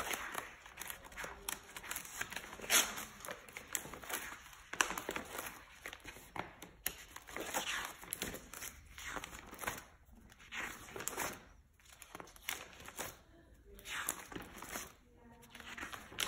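Pages of a spiral-bound sketchbook being turned by hand: stiff paper rustling and crinkling in a series of swishes, with short pauses between page turns.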